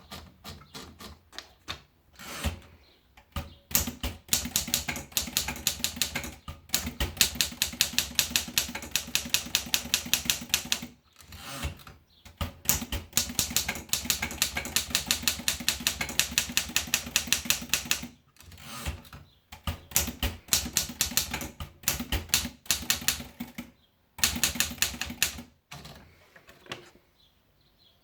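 Remington Travel-Riter manual portable typewriter being typed on: fast runs of key strikes, several seconds each, broken by short pauses, tailing off near the end.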